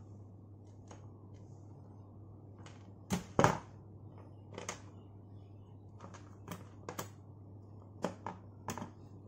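Scattered small clicks and taps of metal tweezers prying at a small hard plastic earbud housing, with two louder clicks close together about three seconds in. A steady low hum runs underneath.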